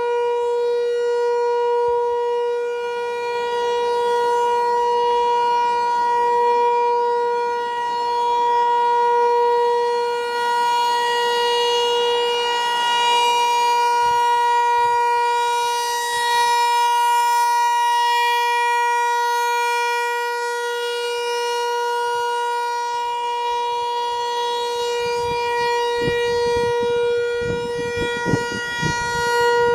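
American Signal T-128 outdoor warning siren sounding a steady tone during a test, its loudness swelling and fading as it rotates. A few low thumps come near the end.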